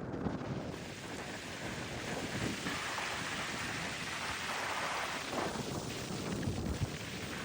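Ocean surf breaking and washing in, a steady rush that swells into a louder hissing wash partway through, with wind buffeting the microphone.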